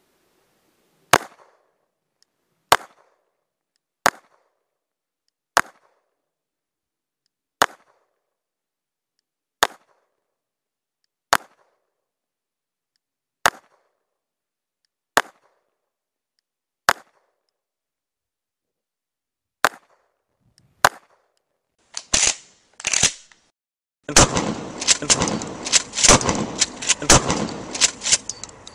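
Glock 19 9mm pistol fired in slow, deliberate single shots, about a dozen sharp cracks one every one and a half to two seconds. Over the last six seconds or so comes a dense run of rapid cracks, duller and cut off in the treble.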